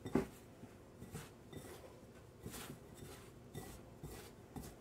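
Hands working biscuit dough in a glass mixing bowl: faint, irregular soft rubbing and squishing strokes, with one short, louder knock just after the start.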